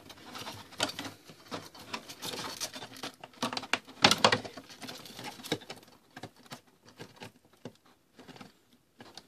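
Hands handling a cut-down plastic water jug and a steel wire that holds a piece of foam in it: irregular crinkling, scratching and clicking of plastic and wire. There is a louder cluster about four seconds in, and the handling becomes sparser and quieter in the last few seconds.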